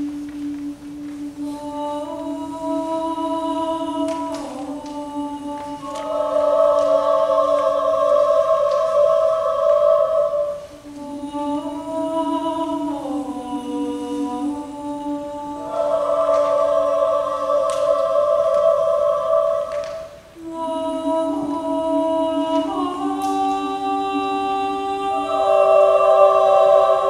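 Mixed chamber choir singing a cappella in long held chords, with voices entering one above another. The sound swells, breaks off about ten and again about twenty seconds in, then builds again.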